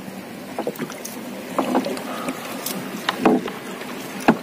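Water splashing and the net rustling against the side of a small fishing boat as a gill net is hauled in by hand, with two sharp knocks on the hull near the end.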